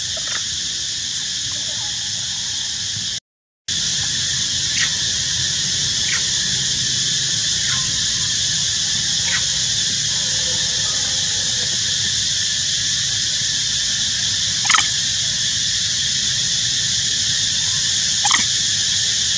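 Steady high-pitched insect chorus of a tropical forest, with short, high squeaks every few seconds. The loudest squeaks come about fifteen and eighteen seconds in, and the sound cuts out briefly about three seconds in.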